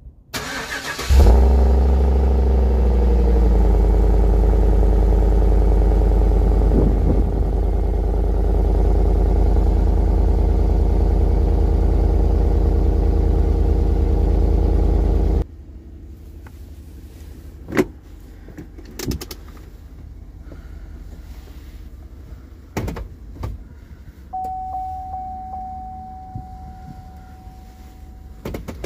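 Chevrolet Tahoe 5.3L V8 cranked by the starter, catching about a second in with a rev flare that falls back to a steady idle, heard at the exhaust tip. About halfway through the sound cuts to a much quieter engine hum inside the cabin, with a few sharp clicks and a steady electronic tone for a few seconds near the end.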